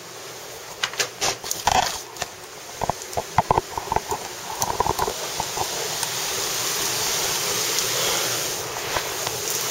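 A burst of clicks and knocks for the first few seconds, then the steady rush of heavy wind-driven rain swells up from about halfway through and holds.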